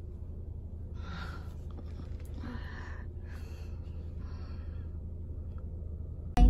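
Low steady hum inside a car cabin with the engine running, with a few faint breathy sounds close to the microphone. At the very end it jumps suddenly to much louder road rumble.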